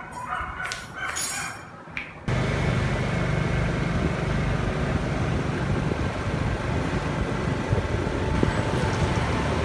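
Steady low rumble of road traffic, cutting in abruptly about two seconds in after quieter, scattered sounds.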